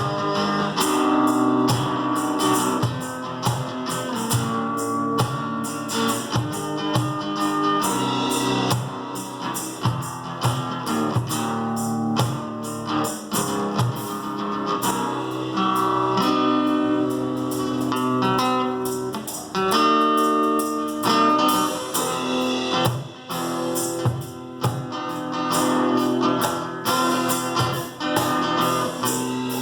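Instrumental blues-tinged acoustic rock: guitar playing over a steady beat of percussion hits, with no singing.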